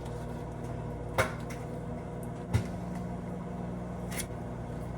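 A steady low hum with a few sharp clicks and knocks over it: one about a second in, a low thump a little later, and another click near the end.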